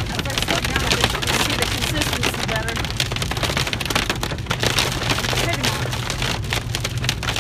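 Slushy hail and heavy rain pelting the car's windshield and roof, a dense, steady patter of many small impacts, heard from inside the cabin over the low rumble of the car on the road.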